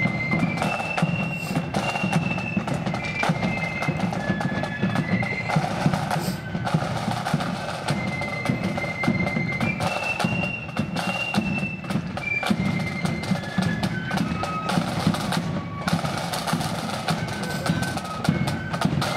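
Marching flute band playing a march: a high flute melody over side drums beating a steady marching rhythm.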